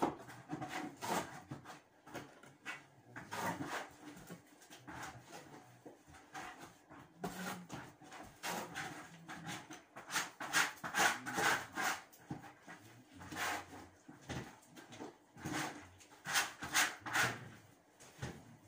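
Flat plastering trowel scraping and rubbing across a ceiling in a run of irregular short strokes, with heavier bursts of strokes about ten seconds in and again near the end.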